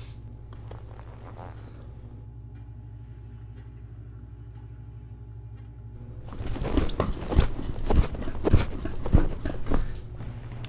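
A low steady hum, then about six seconds in a quick run of creaks and knocks lasting about four seconds, from a metal-framed chair being scooted across a carpeted floor.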